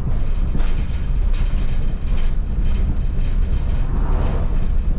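2002 MCI D4500 coach conversion's diesel engine and tyres running at road speed, a steady low rumble with frequent rattling clicks from the body.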